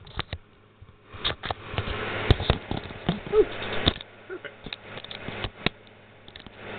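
Camera and tripod being handled and adjusted close to the microphone: scattered clicks and knocks with rubbing and rustling between them.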